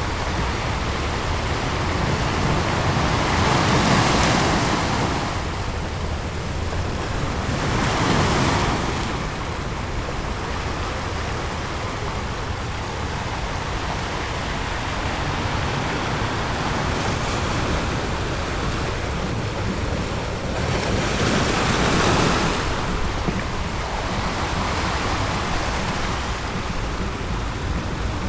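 Ocean waves washing onto a beach over a constant low rumble, with three louder surges as waves break, about four, eight and twenty-two seconds in.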